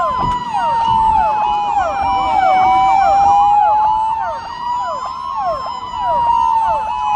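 Several sirens sounding together: one slow wail rising and falling over a few seconds, over many quick overlapping up-and-down siren sweeps.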